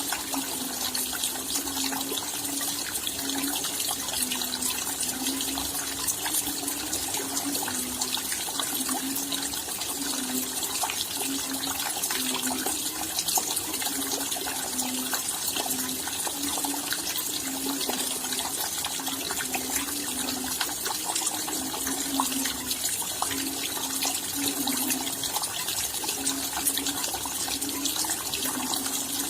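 Steady rain falling, a dense patter of many small drops, with a low short note repeating irregularly about once or twice a second underneath.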